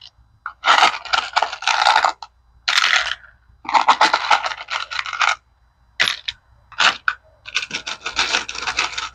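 Loose metal screws rattling and clinking as handfuls are scooped and dropped into plastic parts-organizer compartments, in several short bursts.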